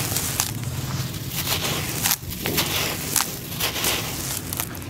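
Dry, dusty dirt crunching and crumbling in bare hands and sifting down into a plastic basin with a little water: a dense gritty crackle of many small clicks, with a short break about two seconds in.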